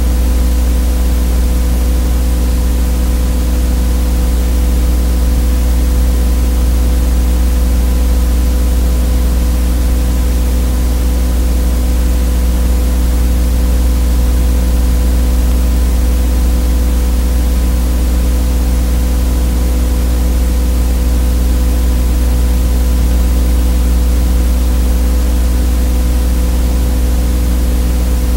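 Steady low electrical buzz with hiss over it, unchanging: transfer noise on the audio track of a silent 8mm home movie.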